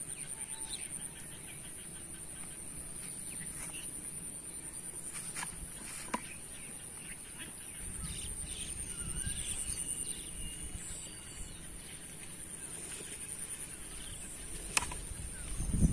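Outdoor ambience at a pond: a steady high-pitched whine, scattered bird calls, and low rumbles of wind on the microphone. A single sharp knock near the end is the loudest sound.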